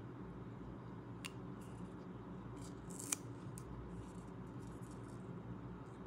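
Paper rustling and crinkling as a small printed paper label is folded and pressed by hand around a miniature plastic toy bottle, with a few sharp clicks, the sharpest about three seconds in.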